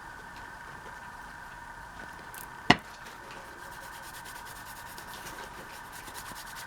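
Quiet rubbing and rustling of paper pieces being handled and slipped into a journal, over a steady faint hum. There is one sharp tap or click a little under three seconds in.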